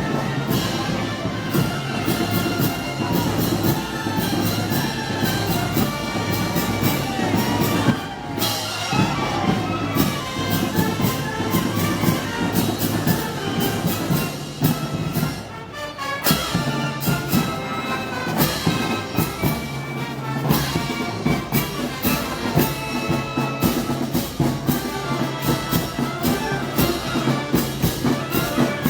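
Brass band playing Moros y Cristianos festival music: brass over drums with a steady beat, pausing briefly twice.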